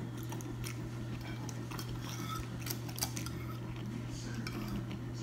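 Fork tapping and scraping on a dinner plate while picking up food, a scatter of light clicks, over a steady low hum.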